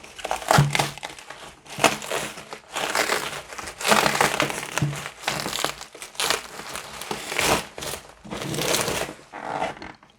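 Plastic parcel packaging being handled and pulled open, crinkling and rustling in irregular bursts.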